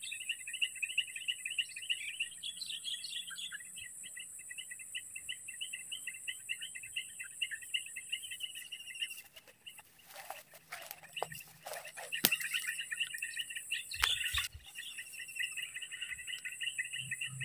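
Continuous high chirping of wild creatures, a fast pulsing trill that goes on steadily, over a steady high hiss. The chirping breaks off briefly in the middle, where a few knocks and rustles sound, then a couple of low thumps follow.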